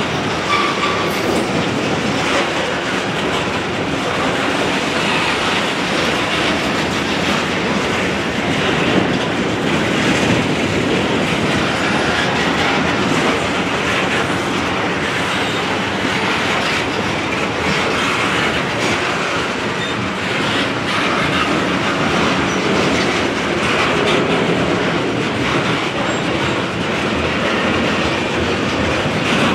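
Loaded covered hopper cars of a unit grain train rolling past: a steady, unbroken noise of steel wheels running on the rails.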